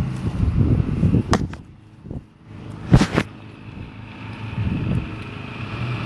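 Wind rumbling on the microphone of a handheld phone, with two sharp knocks about a second and a half apart.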